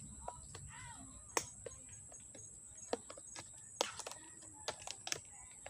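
Irregular sharp clicks and knocks, about seven, from handling a just-repaired electric fan as it is plugged in for a test run.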